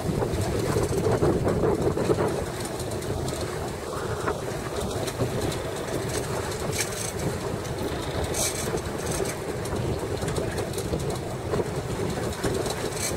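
Fishing boat's engine running steadily, with the hiss of sea and wind around the stern.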